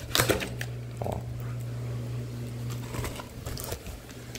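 Kitchen knife slicing through packing tape and cardboard wrapping, with scattered crackles and scrapes of the tape, over a steady low hum.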